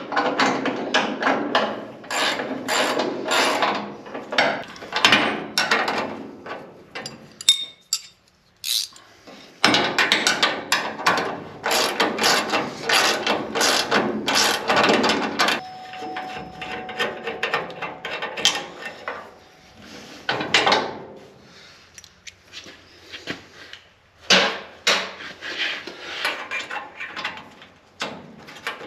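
Ratchet wrench clicking in repeated strokes, with metal knocks, as the bolts of old truck-bed hinges are worked loose.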